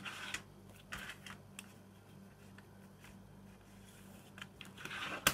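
Plastic CD jewel case being handled: a click at the start, light rustles and taps, then a sliding rustle that ends in a sharp click near the end as the case is closed.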